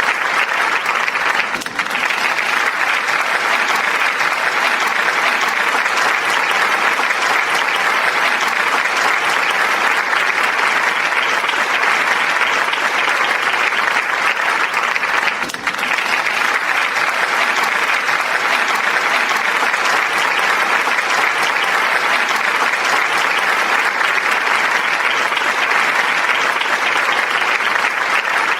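A large crowd applauding: dense, steady clapping that dips for a moment twice, about two seconds in and about halfway through.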